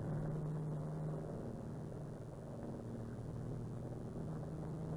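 Steady drone of a Douglas Dakota's twin radial piston engines, heard inside the cabin in flight: a low, even hum whose tone slowly grows stronger and weaker.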